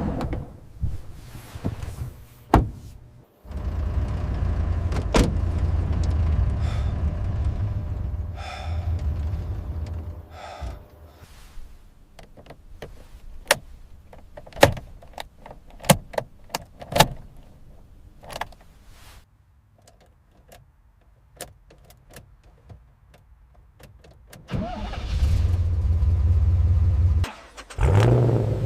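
A car's engine running in two stretches of low, steady rumble, with a run of sharp clicks and knocks in the quieter part between them.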